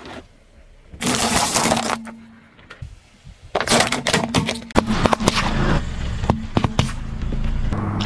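Car tyre rolling slowly over small objects on asphalt, crushing them with a run of sharp cracks and snaps in the second half, over the car's low engine hum and tyre noise.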